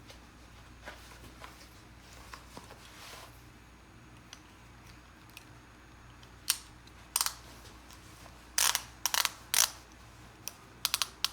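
Leather ratchet belt being fastened: the strap's track clicking through the buckle's pawl as it is pulled tight, a run of sharp clicks in quick clusters through the second half, after soft rustling of clothing.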